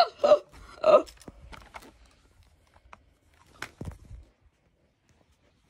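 A person's voice briefly in the first second, then a few faint clicks and a soft thump of handling about three and a half seconds in, going nearly quiet near the end.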